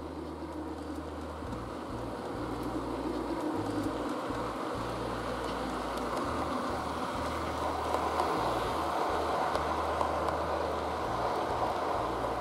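OO gauge model of a Wainwright D Class 4-4-0 locomotive hauling coaches along the track: a steady whirring rumble of motor and wheels on rail that grows louder over the first few seconds as the train passes.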